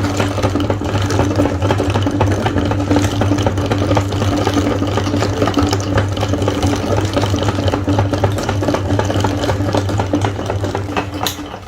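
Electric meat grinder running with a steady motor hum and a dense crackling as food goes through it, dying away near the end.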